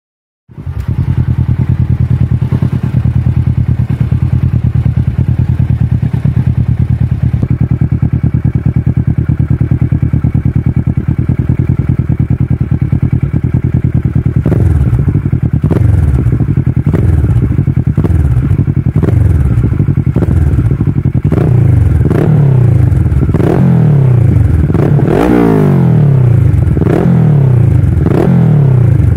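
Kawasaki Versys 650's parallel-twin engine through a Mivv Black silencer. It starts idling steadily about half a second in, and from about halfway it is revved in repeated short blips, each rising and falling in pitch, coming quicker near the end.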